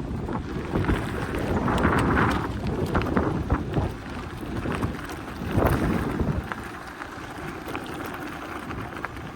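Crosswind buffeting the microphone of a bicycle-mounted camera in gusts, swelling about two seconds in and again near six seconds, then easing, over the rumble and scattered ticks of bicycle tyres rolling on gravel.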